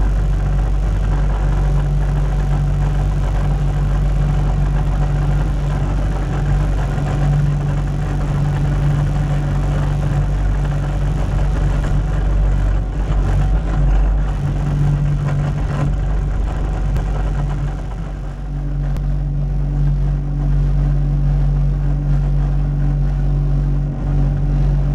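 Cat 289D3 compact track loader's diesel engine running steadily while working. About eighteen seconds in, the sound dips briefly and settles into a slightly different steady note.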